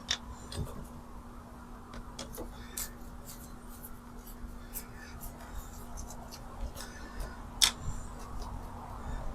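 Irregular small clicks and taps of hands handling the pressure washer's plastic switch assembly, with a sharper click near the end, over a faint steady hum.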